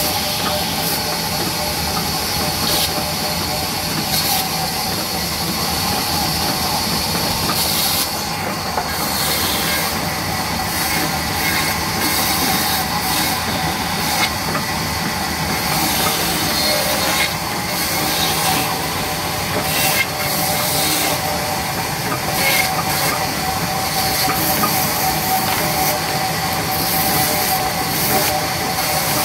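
Belt-driven vertical band saw running steadily and ripping a length of wood into planks, a continuous high whine and hiss of the blade in the wood. Occasional short knocks of timber on the saw table.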